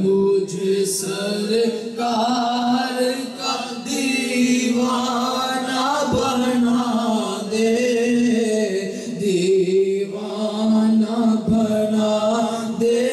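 A male voice sings an Urdu naat (devotional praise poem) unaccompanied into a microphone, holding long, drawn-out notes that slowly waver up and down in pitch.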